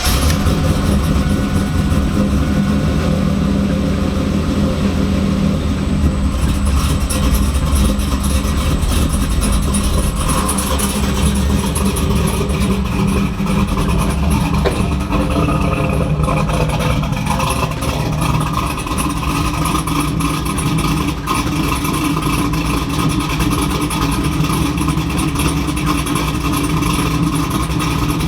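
2002 Camaro SS's LS1 V8 running at a steady idle. It now starts because the VATS anti-theft system has been disabled in the engine tune.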